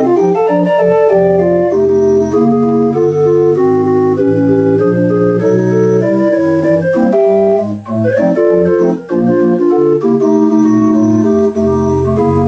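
Homemade pipe organ with a single rank of wooden 8 ft stopped gedackt pipes, playing a ragtime tune under MIDI control: a bass line under quickly changing chords, the pipes breaking off briefly twice near the middle.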